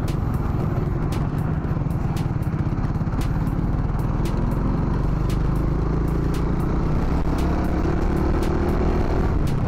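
Motorcycle engine running as the bike rides along, its pitch slowly rising through the second half as it picks up speed, with light ticks about once a second.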